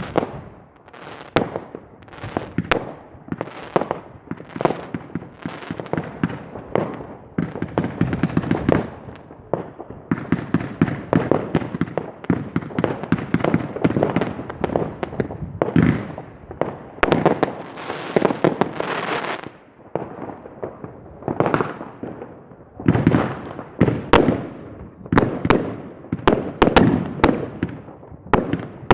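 Fireworks going off: a rapid, irregular string of bangs and crackles in dense salvos, with a brief lull about twenty seconds in.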